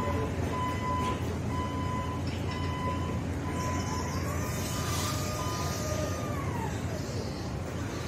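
Hyundai electric reach truck running: its warning beeper sounds a steady, slightly broken tone, then its electric motor whines up, holds for about two seconds and winds back down, over a steady low hum.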